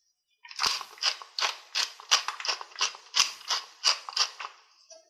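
Pepper mill twisted to grind black pepper: about a dozen short rasping grinds, roughly three a second, starting about half a second in and stopping near the end.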